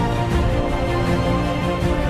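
Background music with sustained, layered tones at a steady level.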